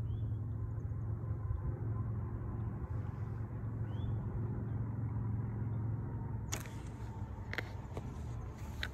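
Steady low mechanical rumble with a hum, like a running motor or distant traffic. Two faint short rising chirps, and a few sharp clicks in the last third.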